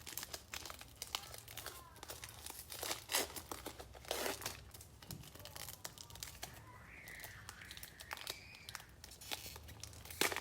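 Trading-card pack wrapper crinkling and tearing, with cards being handled: a run of irregular crackly rustles.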